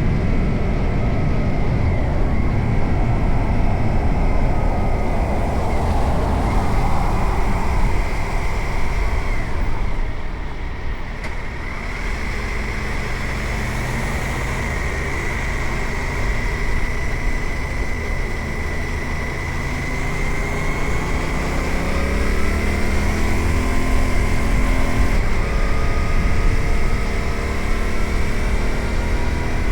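Suzuki GSX-8R's parallel-twin engine running under way, with wind rushing over the microphone. About two-thirds in the engine pitch climbs, drops suddenly at a gear change, then climbs again.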